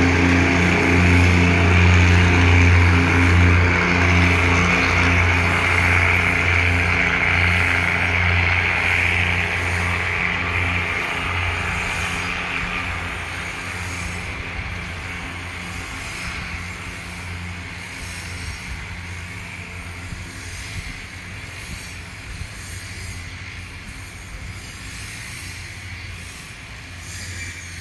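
Thai diesel railcar train pulling away along the track, its engine drone and running noise fading steadily as it recedes. The low engine hum is gone about halfway through, leaving only a faint rumble.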